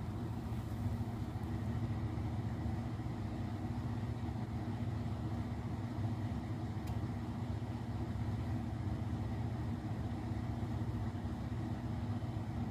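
Ford F-150 pickup truck's engine running at a low idle, a steady low hum.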